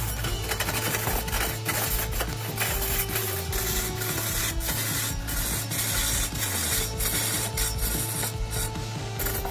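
Background music with a low, repeating bass line, over a rough, rattling scrape of a hand chisel cutting into a large log spinning on a wood lathe.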